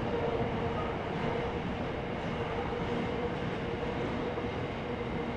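Freight train running past on the railway line: steady train noise with a constant hum through it.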